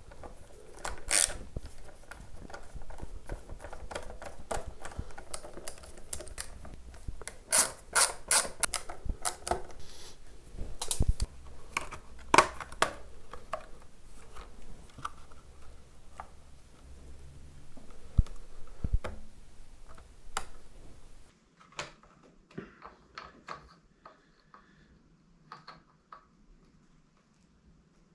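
Irregular clicks, taps and small metallic knocks of hand work on an electric bass's hardware: pickguard screws being undone with a screwdriver and the loose collar nut on the toggle switch being tightened with a small hand tool. The clicks grow softer and sparser for the last several seconds.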